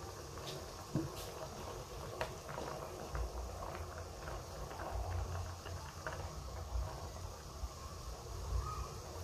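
Coconut-milk broth simmering in a wok, with scattered small pops and ticks, and a wooden spatula stirring through it partway through, over a low rumble.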